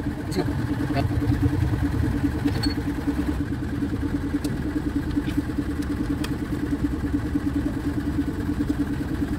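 A steady engine-like drone, with a few short metallic clicks from hand tools on the bolts of a truck's clutch pressure plate.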